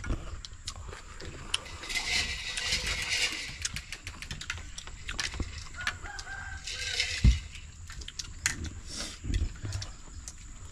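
Two drawn-out animal calls, each about a second and a half long and some four seconds apart, among scattered small clicks, with a sharp knock about seven seconds in.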